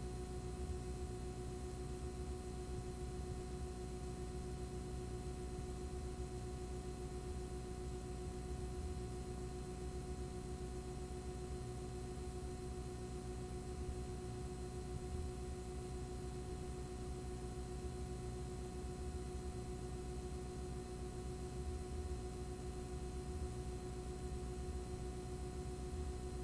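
Steady electrical hum with several fixed tones over a low rumble and hiss. It does not change and holds no speech or other events.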